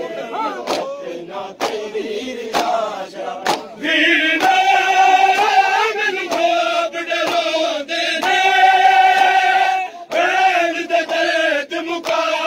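A large crowd of men chanting a noha (mourning lament) in unison, with sharp hand slaps on chests (matam) keeping a steady beat. In the middle stretch the voices hold long drawn-out notes and the slaps fall back, then the beat returns near the end.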